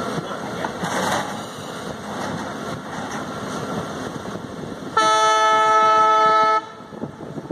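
Indian Railways diesel locomotive horn: one long blast about five seconds in, lasting about a second and a half and stopping abruptly, over the steady running rumble of the passenger coaches on the rails.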